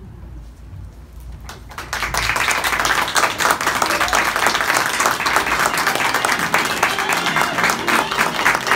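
Audience applauding: loud, steady clapping from many hands breaks out about two seconds in, after a quiet moment.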